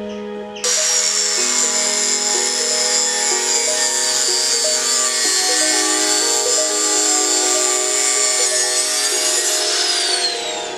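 Angle grinder with a thin cutting disc cutting through a steel bar: a loud high whine with grinding hiss starts suddenly under a second in, and near the end the whine falls in pitch as the disc spins down. Background music plays throughout.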